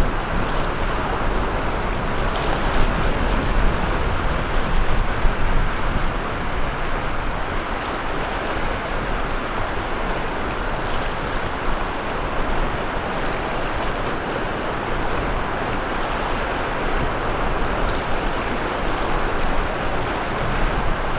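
Sea surf washing onto the beach in a steady, continuous wash, with a low wind rumble on the microphone underneath.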